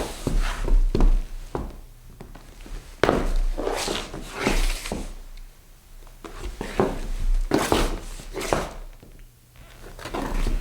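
Shoe soles scuffing and scraping across a wooden floor in a series of separate strokes, some short and some drawn out for about a second, with a sharp, loud scuff about three seconds in.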